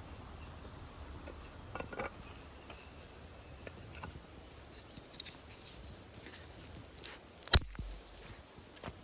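Scattered small clicks and rustles of gear being handled, with one sharp, louder click about three-quarters of the way through.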